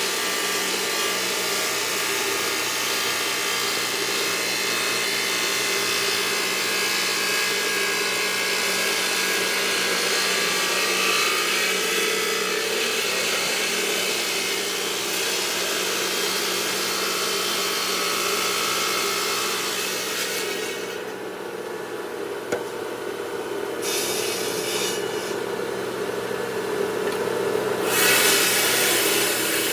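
Stone-working machinery running on marble: a steady abrasive cutting or grinding noise over a machine hum. Around two-thirds through, the high hiss falls away for several seconds, then returns near the end.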